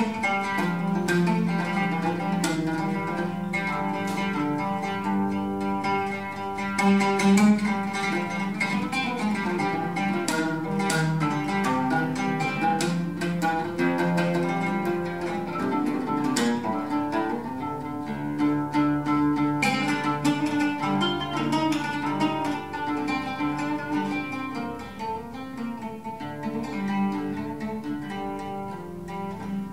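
Oud played with a plectrum: a continuous stream of fast plucked notes over long ringing low notes, in live improvised music.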